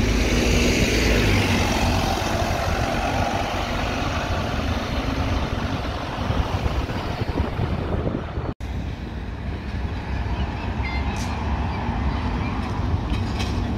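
Open-top double-decker bus's diesel engine running as the bus passes close and pulls away. After a brief cut-out about eight and a half seconds in, street traffic with another double-decker bus approaching.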